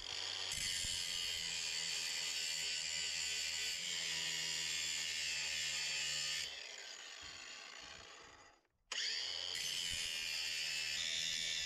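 Cordless angle grinder running under load, grinding the end of a steel digging bar to sharpen it, with a steady high whine. About six and a half seconds in it is switched off and winds down with falling pitch, goes quiet for a moment, then starts again just after nine seconds.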